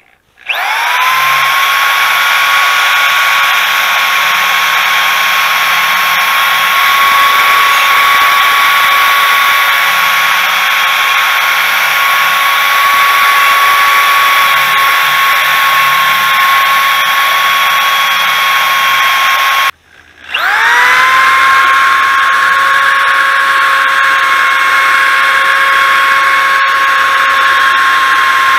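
Small corded die grinder with a wire wheel running at a steady high whine, wire-brushing rust off an exhaust pipe and the inside of an exhaust manifold before repair. It spins up at the start, shuts off about twenty seconds in, and spins straight back up.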